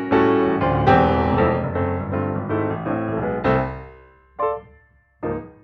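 Piano music: a run of notes and chords that fades out about four seconds in, followed by two short single notes.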